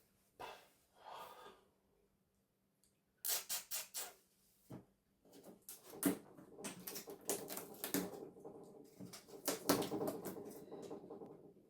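Clattering and rattling of small plastic and metal television parts being handled while the set is taken apart: a few separate knocks and clicks, then a longer stretch of busy rattling from about five seconds in.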